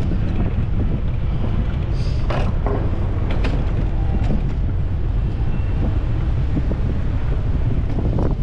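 Wind buffeting the microphone of a moving bicycle, a steady low rumble, with a few brief clicks or rattles about two to three and a half seconds in and again near the end.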